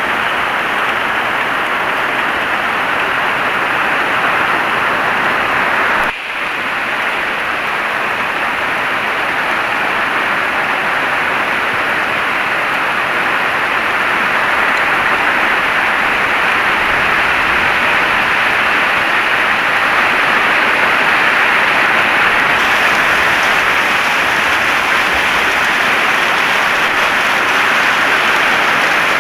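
Heavy rain falling in a steady, dense hiss, with a brief dip in level about six seconds in.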